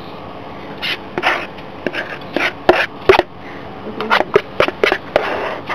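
Table knife scraping and knocking irregularly as a thick homemade chocolate peanut-butter spread is scooped out and spread onto bread, in quick short strokes that come thicker in the second half.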